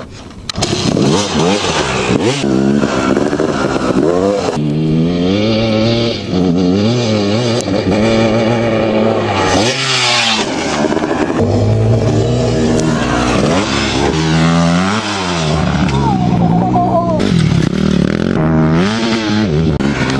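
Two-stroke dirt bike engine comes in loud about half a second in and revs hard, its pitch climbing and dropping again and again as the throttle is worked.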